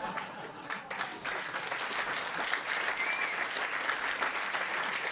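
Theatre audience applauding, the clapping swelling to full strength about a second in and then holding steady.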